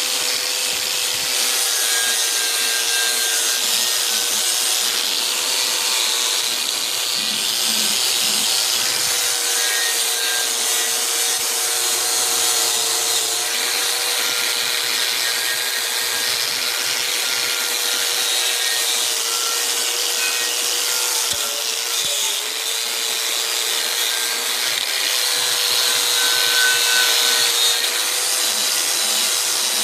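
Angle grinder with a wire brush running steadily with a high whine over a dense hiss, scrubbing old paint and rust off the cast-iron block of a John Deere Type E hit-and-miss engine. Its pitch sags briefly about two-thirds of the way through as it is pressed harder.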